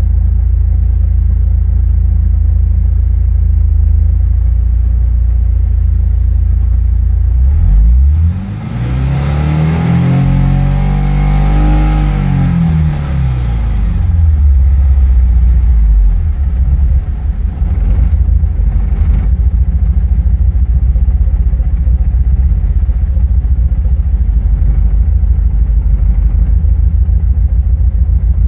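1986 Porsche 944's naturally aspirated four-cylinder engine idling, then revved once, rising about eight seconds in and falling back about six seconds later, then idling with a heavy, uneven pulsing. The owner says this engine misfires above about 5000 rpm and runs badly as the revs come back down, its idle slow to smooth out.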